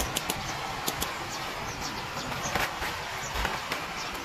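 Handheld gas torch flame hissing steadily, with a few sharp metallic clicks and taps in the first second.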